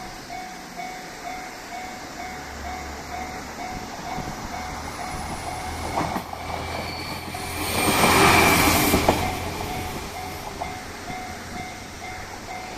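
Level-crossing alarm bell ringing with a steady repeating ding while a JR Shikoku 1500-series diesel railcar passes the crossing. The railcar's engine drone builds, the rush of the car going by is loudest at about eight seconds in, and a few sharp wheel clicks sound over the rail.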